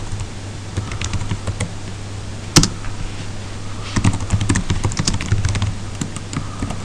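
Typing on a computer keyboard: scattered keystrokes with one louder key strike about two and a half seconds in, then a quicker run of typing from about four seconds on, over a steady low hum.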